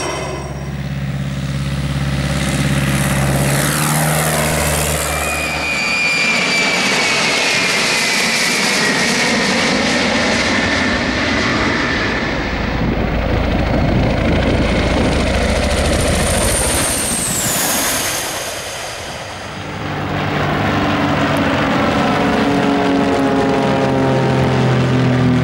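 A run of low aircraft passes. An Alouette III helicopter's rotor and turbine sound first. From about six seconds in, an Ilyushin Il-76 four-engine jet transport passes with a loud jet roar and a falling turbine whine. In the last few seconds, single-engine propeller planes in formation drone past, their pitch slowly dropping.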